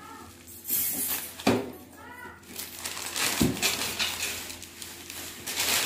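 Bubble wrap and plastic packaging rustling and crinkling as an oven tray is pulled out of its cardboard box, with a sharp knock about one and a half seconds in.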